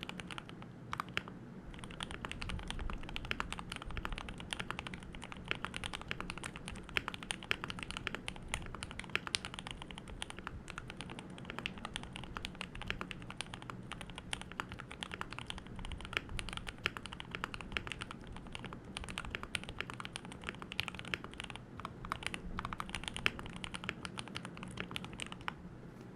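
Typing on a Keychron K2 V2 mechanical keyboard fitted with lubed Gateron Milky Yellow Pro linear switches, stock keycaps and foam-dampened case: a fast, steady stream of keystrokes with a short pause about a second in, stopping just before the end.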